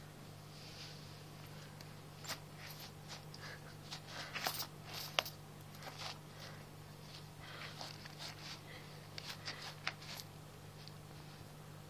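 A cat pawing and rummaging through paper money: scattered light rustles and crinkles, busiest around four to five seconds in, over a steady low hum.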